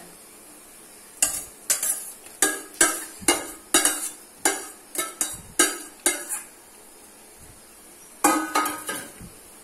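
A metal spoon knocking and scraping against a steel pan, about a dozen sharp ringing strikes over five seconds, as sautéed onions are scraped out of it into a pot. After a short pause, another brief burst of metal-on-metal clatter near the end.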